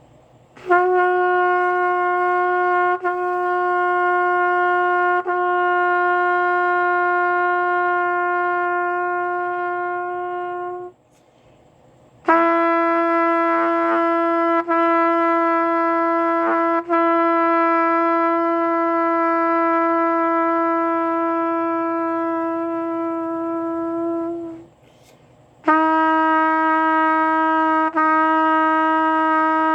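Trumpet playing three long sustained tones of roughly ten seconds each, the second and third lower than the first, each with a few brief catches in the tone. These are the crackly, unsteady long tones of a player relearning after braces removal, which he puts down to his teeth moving back under a new Invisalign aligner.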